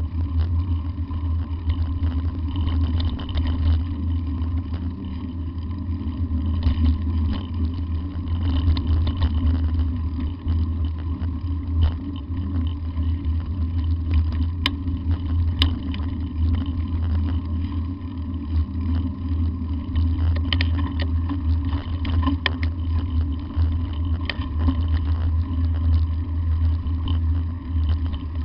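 Car driving over a corrugated washboard dirt road: a steady low rumble with scattered clicks and rattles throughout.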